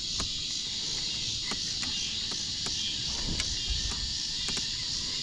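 Steady, high-pitched insect chorus droning without a break, with a few faint scattered clicks.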